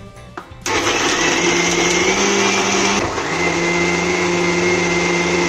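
750-watt electric mixer grinder switching on under a second in and running steadily with a high whine, its steel jar grinding coriander chutney with whole peanuts into a paste. The motor note breaks briefly about halfway, then runs on at a slightly lower pitch.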